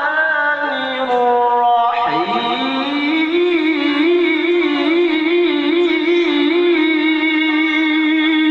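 A male qari's melodic Quran recitation (tilawah), one unaccompanied voice. It sings a falling melismatic phrase, slides down and back up about two seconds in, then holds one long note with a fast wavering ornament.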